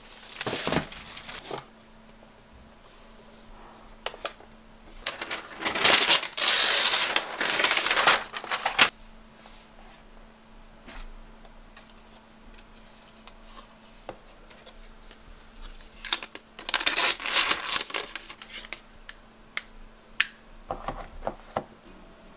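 Plastic wrap and paper packaging of a laptop box being pulled off and unwrapped by hand: crinkling and tearing in four bursts, the longest a few seconds each, with faint taps and clicks between them.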